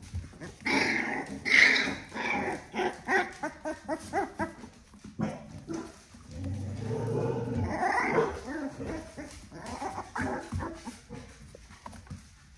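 Puppies growling and yapping at play, a quick run of short yaps and growls with one longer low growl about six seconds in.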